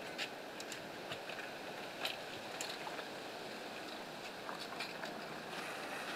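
A rooster carcass being dunked and lifted in a stainless stockpot of scalding water to loosen the feathers: light sloshing and dripping with scattered small clicks, over a steady hiss.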